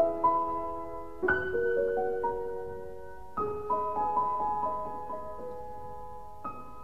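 Background piano music: a slow, gentle piece with a new chord struck about every two to three seconds and single notes stepping in between, each ringing on and fading away.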